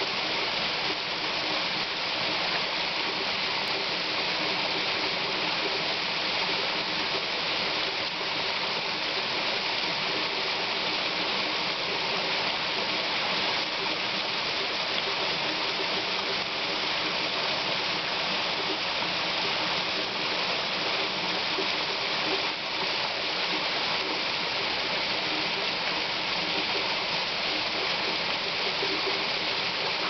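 Small waterfall falling as a thin stream onto a shallow rock pool: a steady, even rush of splashing water.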